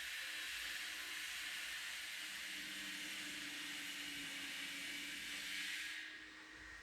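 Unidentified machine running with a steady hissing whir and a faint low hum, then cutting off suddenly about six seconds in. The uploader takes it for machine noise coming from the apartment upstairs.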